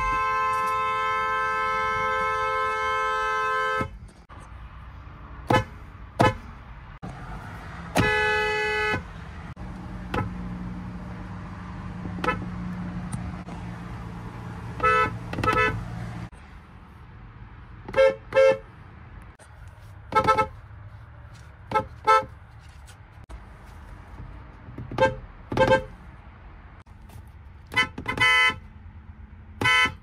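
Kia car horns from several different cars, sounded from the steering-wheel pad: one long two-note blast of about four seconds, then a string of short toots, many of them in quick pairs.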